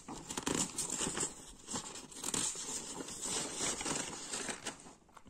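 Sheets of paper rustling and crinkling as they are handled and turned over, in irregular crackles that die away near the end.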